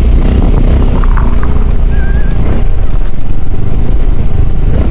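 Loud, steady low rumble of wind buffeting the microphone, with an engine running underneath, as from a moving vehicle.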